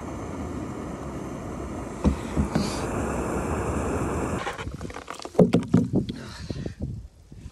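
Jetboil camp stove's gas burner running with a steady rushing noise, which cuts off after about four seconds. A run of sharp knocks and taps follows, from a chunk of ice on snow-covered wooden boards.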